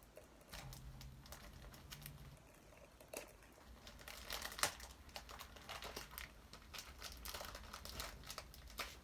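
Packaging being crinkled and pulled open by hand: a run of irregular crackles, loudest about four and a half seconds in.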